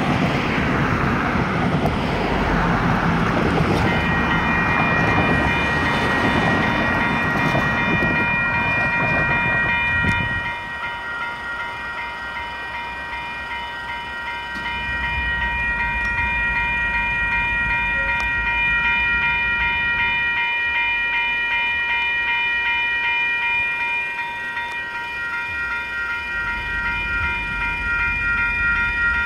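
Railroad crossing electronic warning bells start ringing about four seconds in and keep ringing steadily, several bells sounding together, as the crossing activates and its gates lower for an approaching train. Before the bells begin, road traffic passing through the crossing makes a loud noise that fades after about ten seconds.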